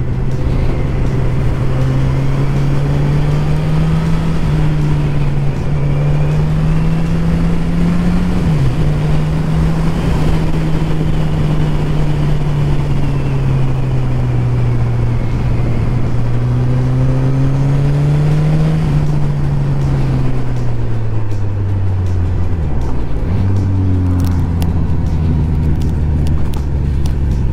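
Motorcycle engine heard from the bike while riding, its note rising and falling with the throttle. The note dips sharply about nine seconds in, then falls away in steps late on and settles lower as the bike slows.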